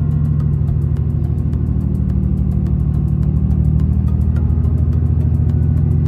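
Car engine running steadily at low speed, heard from inside the cabin while the car rolls slowly.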